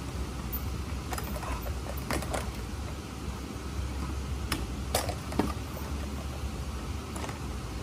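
Metal swing chains and the swing-set frame clinking and knocking as a person hangs and swings from the top bar: a handful of sharp clinks, the loudest about five seconds in, over a steady low background rumble.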